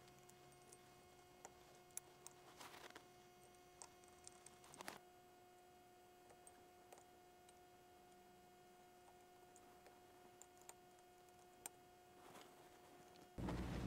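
Near silence: faint, scattered clicks and taps of small plastic parts as the wheel trucks are fitted back onto a model train tender, over a faint steady hum.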